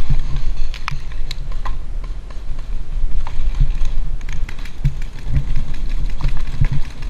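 Movement noise on a body-worn camera during a paintball game: a steady low rumble with scattered, irregular sharp clicks and taps.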